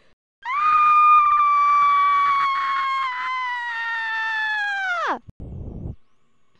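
A person's long, high-pitched scream, held for about five seconds. It sags slowly in pitch, then drops away sharply at the end. A brief muffled rustle follows.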